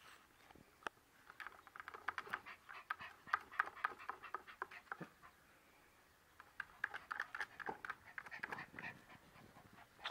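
Yorkshire terrier panting rapidly in two bursts, with a short pause between them.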